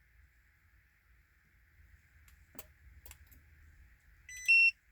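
Two faint clicks, then near the end one short two-tone electronic beep from the remote-start button being pressed; the 2004 Ford Expedition's engine does not crank or start.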